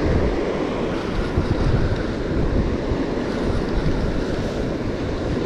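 Ocean surf washing on a beach, with wind buffeting the microphone in uneven low gusts.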